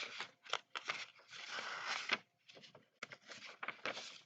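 Paper rustling in irregular bursts as a picture book's pages are handled and turned, cutting off abruptly near the end.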